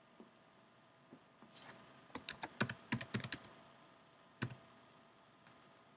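Typing on a computer keyboard: a quick run of keystrokes about two seconds in, then a single keystroke a second later. A word is being typed into a text field.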